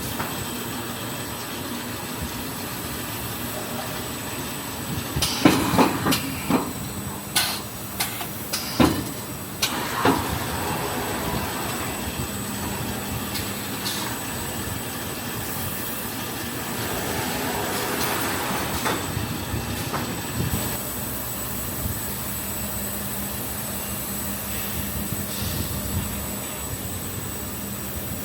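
SPC flooring automatic packing machine running: a steady mechanical hum with a thin high whine, and a run of sharp clacks and knocks about a fifth to a third of the way in.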